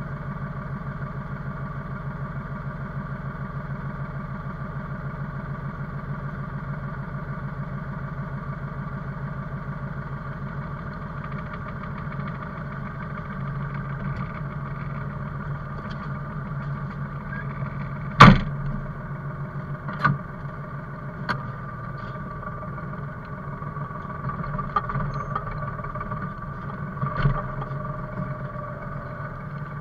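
Forestry machine's engine running steadily, heard from inside the cab, with a few sharp knocks: the loudest about 18 seconds in, smaller ones a couple of seconds later and again near the end.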